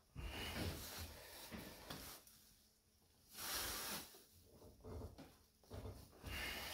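Faint scraping, rustling and light knocks of a socket wrench and Y-shaped clutch-holding tool being strained against a scooter's clutch nut, which will not turn. A breathy hiss stands out about three and a half seconds in.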